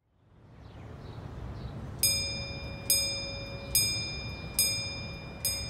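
A bright, bell-like chime struck five times at an even pace, each strike ringing out and fading before the next, over a low rumble that swells in at the start.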